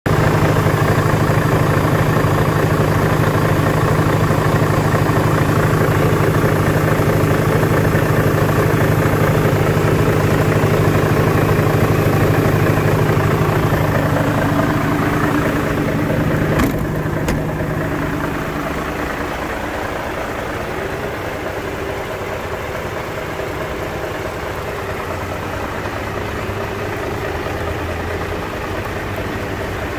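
Mercedes-Benz Actros 3240's V6 diesel engine idling steadily, loud and close for the first half. About 17 seconds in there is a single knock, after which the engine sound is quieter.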